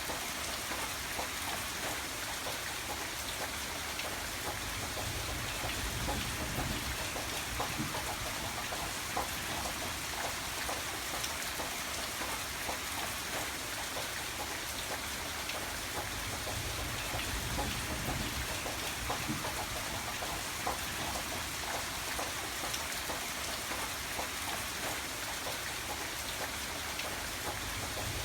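Steady rain falling on a surface, a dense even hiss with many small individual drops ticking through it.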